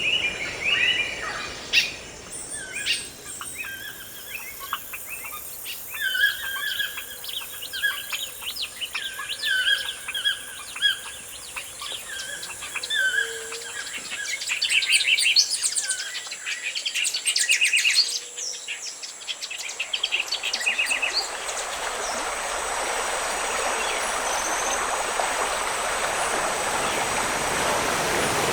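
Tropical forest birds calling, with short chirped phrases repeated over and over and quicker trills near the middle. About twenty seconds in, the birds fade out under a steady rush of flowing water, like a stream or waterfall, which grows louder to the end.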